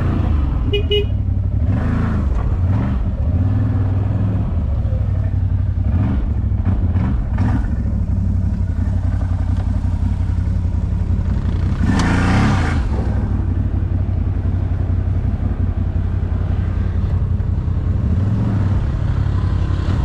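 ATV engine running steadily at low revs, with a brief louder rush of noise about twelve seconds in.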